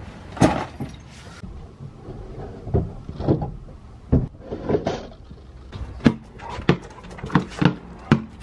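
Irregular knocks and clatters of tools and cases being moved and set down on plywood van shelving, followed in the second half by a quicker run of sharp knocks.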